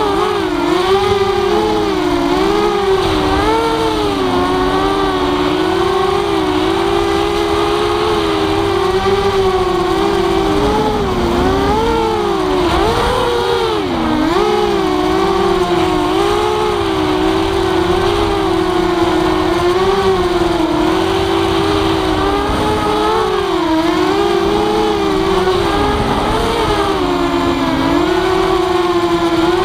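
Walkera F210 racing quadcopter's brushless motors and propellers buzzing in flight. The pitch wavers up and down constantly as the throttle changes, with a few dips a little before halfway and near the end.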